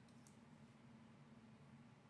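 Near silence: room tone with a steady low hum and a few faint clicks just after the start, as small parts are handled.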